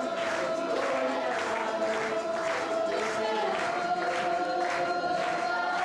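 A mixed group of young men and women singing together, holding one long note over a regular beat.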